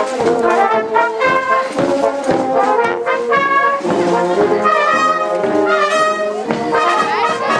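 Marching band of trombones, trumpets, saxophones and sousaphones playing a tune as it marches.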